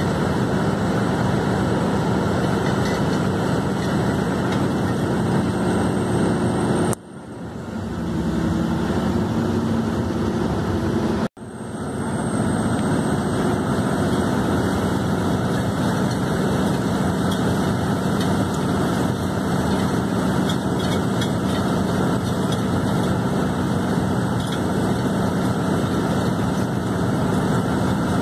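Casagrande C6 drilling rig drilling with a down-the-hole air hammer: a loud, steady din of the hammer and its air blast over the rig's engine. About a quarter of the way in the noise drops away for about four seconds, leaving the engine, then cuts out for a moment and comes back at full level.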